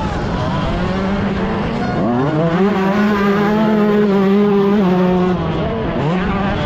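Yamaha YZ125 two-stroke single-cylinder engine running under hard throttle. Its pitch climbs steeply about two seconds in, holds high for about three seconds, then drops and picks up again near the end.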